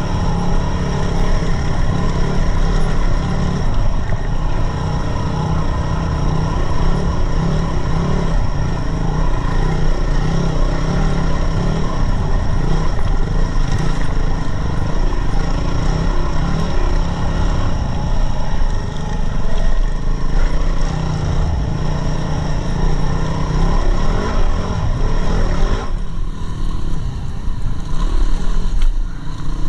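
Yamaha WR250R dual-sport motorcycle's single-cylinder four-stroke engine running steadily while riding, with wind and ride noise. The sound turns duller near the end.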